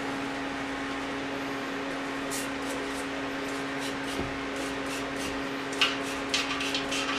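Trigger spray bottle squirting cleaner onto a bike rim: a string of short, hissy sprays from about two seconds in, the loudest near six seconds, while the rim bed is cleaned for tubeless rim tape. Under it runs a steady low hum.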